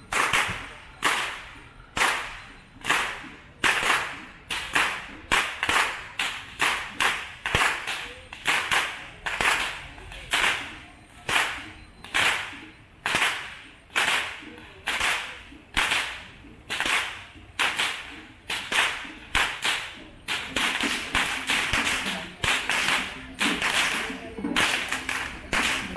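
Long rope whips cracked over and over by Kandyan perahera whip-crackers, about one and a half sharp cracks a second, each dying away quickly. The cracking heralds the procession and clears the way for it. From about twenty seconds in the cracks come closer together over a steadier background.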